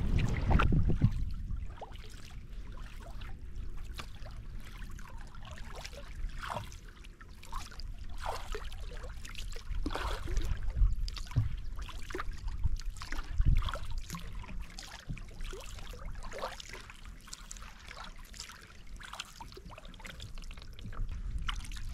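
A kayak being paddled through calm water, with irregular small drips and splashes from the paddle and ripples lapping at the hull. Wind buffets the microphone at the start and again near the end.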